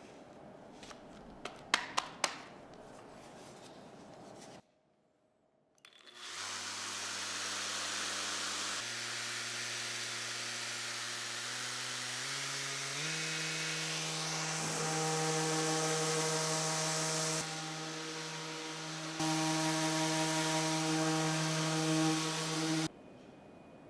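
An electric power tool running on zelkova hardwood, its motor hum stepping up in pitch several times as it works, with a hiss over it; it cuts off suddenly near the end. A few sharp knocks of wood handling sound before it starts.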